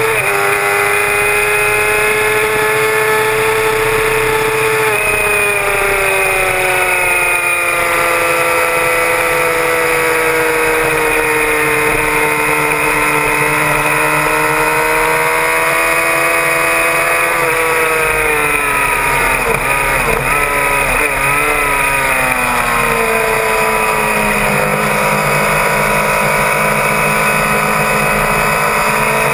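Suzuki GSX-R750 K6 inline-four engine heard from on board at racing speed, held at high revs for a long stretch, then falling with a few quick blips as the rider brakes and changes down, settling lower for the next corner, over wind rush.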